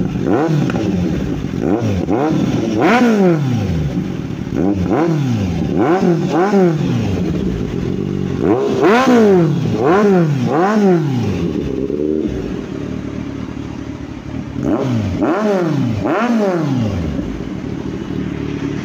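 Kawasaki Ninja 1000's inline-four engine, breathing through a full-system Austin Racing exhaust, revved again and again at standstill. Each blip rises and falls in pitch, with a short spell of steadier running a little past the middle. The bike is very loud, a roar.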